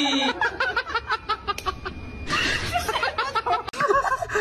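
A person laughing hard: a long run of quick, repeated laughs with a brief breathy pause a little past halfway.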